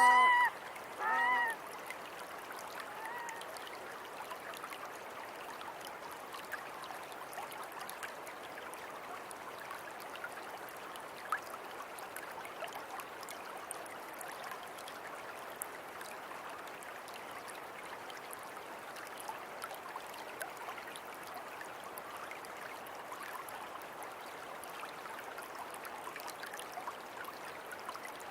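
River water flowing steadily. Near the start a bird gives two short calls, and a fainter call follows about three seconds in.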